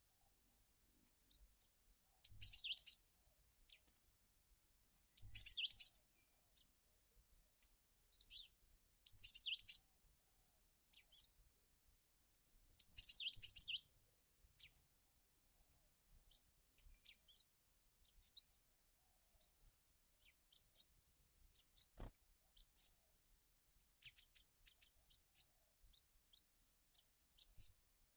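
Cinereous tit (gelatik batu) chirping: high chirp bursts about a second long every few seconds, then shorter, scattered chirps. A single sharp click comes about two-thirds of the way through.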